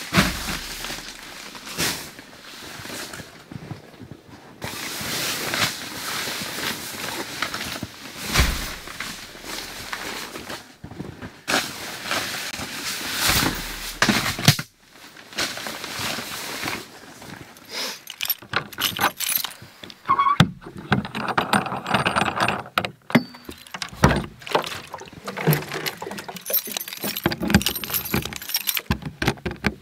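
Rustling and handling noise as dry bags are carried in and set down inside a tent-fabric awning room, the fabric brushing and shifting. This is followed, in the second half, by keys jangling and clicking in a lock, with many irregular clinks.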